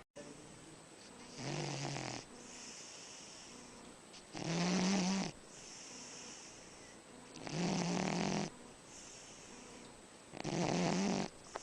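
An animal snoring: four loud, rough snores about three seconds apart, each lasting about a second, with a softer breathy sound between them.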